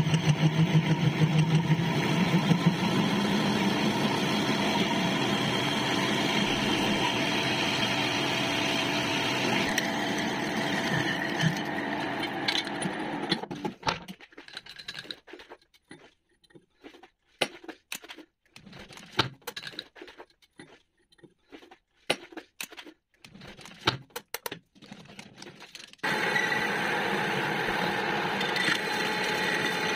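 Metal lathe running and cutting a metal plate, a steady machine noise. About fourteen seconds in it stops, leaving scattered clicks and knocks. Near the end the lathe starts up again.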